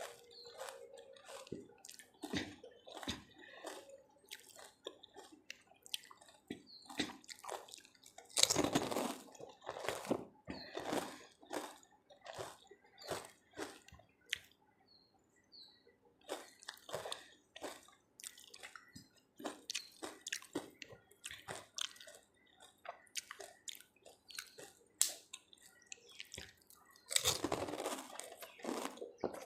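Close-miked eating of pani puri: crisp puri shells cracking and wet chewing of the spiced water filling, with many small mouth clicks and smacks. There are two louder, longer bites, about nine seconds in and near the end.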